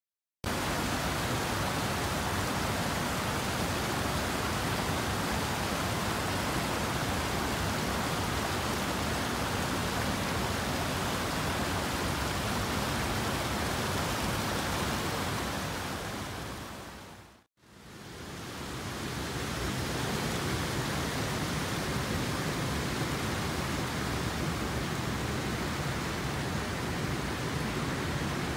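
Steady rushing of a small woodland brook tumbling over rocks, an even hiss of water. About two-thirds of the way through it fades out for a moment and comes back much the same.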